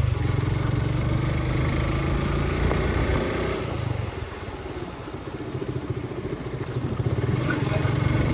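Suzuki motorcycle engine running under way, with wind noise; the engine eases off about four seconds in and picks up again near the end.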